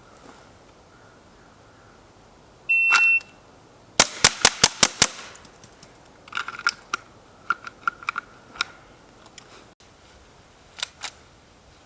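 A shot timer's start beep, then a rapid string of six .22 LR pistol shots from a Ruger Mark IV, about a fifth of a second apart: a bill drill. Fainter clicks and knocks follow over the next several seconds.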